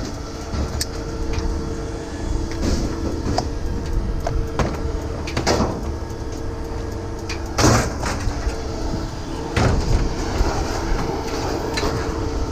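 Scrap metal pieces being handled: irregular knocks and clanks, the loudest twice in the second half, over a steady low engine-like hum.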